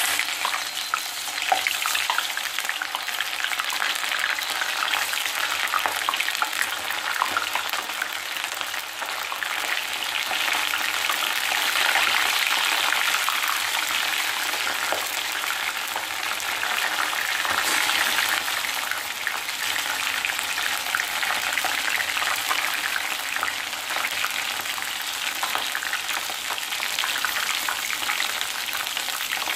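A fresh batch of batter-coated ivy gourd slices deep-frying in hot oil in a cast-iron kadai: a steady, loud sizzle full of small crackling pops as the oil bubbles hard around the wet pieces.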